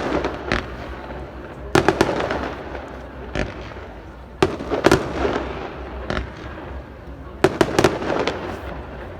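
Fireworks display: a run of sharp bangs, some in quick doubles and triples, coming in clusters every second or two, each followed by a fading, echoing tail.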